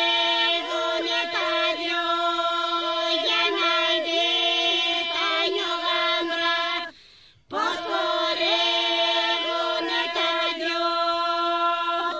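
Epirote polyphonic folk singing: a group holds a steady drone while a lead voice winds a melody above it. The singing breaks off briefly about seven seconds in, then resumes.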